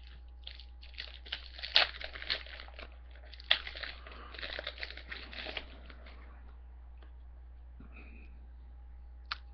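Foil trading-card pack being torn open and crinkled in the hands: a dense run of crackles and crinkles for about six seconds, then only a steady low hum with a single click near the end.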